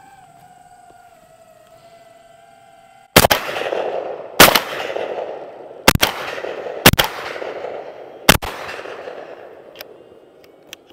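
An FPV drone's motors whine steadily for about three seconds, then a Benelli shotgun loaded with birdshot fires five shots, roughly a second to a second and a half apart, each with a long echoing tail.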